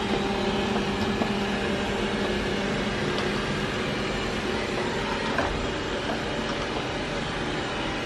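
Xiaomi 1C robot vacuum-mop running, a steady whir of its suction fan and brushes as it works along the edge of a door and wall.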